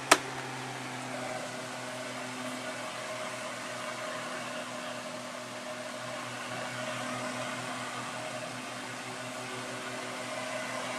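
Holmes Blizzard 9-inch table fan (HAOF90) running steadily on low speed with oscillation: an even whoosh of air with a motor hum. A single sharp click at the very start, from a turned control knob.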